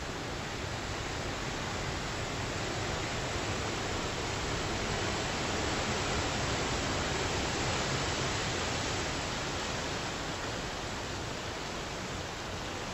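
Steady rushing of water on a flooded street, swelling as an SUV drives through and its wake surges and splashes about midway, then easing off.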